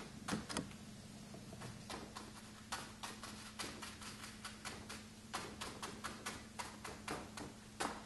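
Chinese ink brush dabbing and stroking on paper pinned against a hard board: quick, irregular taps, a few a second, with a short pause near the start.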